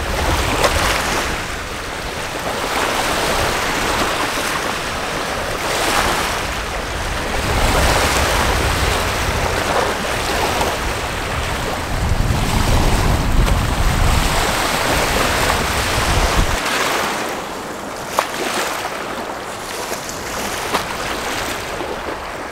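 Small waves washing against a lake shore, with wind buffeting the microphone; the low wind rumble drops away about two-thirds of the way through.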